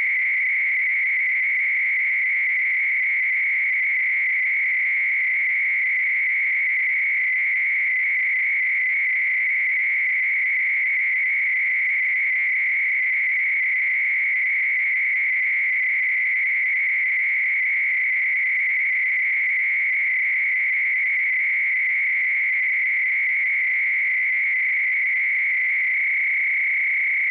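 A steady, high-pitched electronic tone, held unbroken at one pitch, with fainter tones beneath it.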